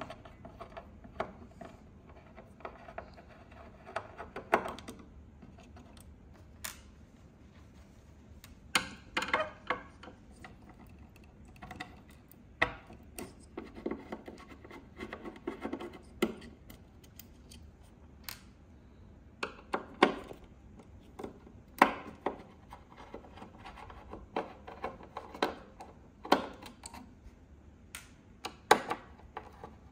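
Small screwdriver turning screws out of a metal chassis and circuit board, with irregular sharp clicks, short scrapes and light metallic clinks of screws and parts being handled.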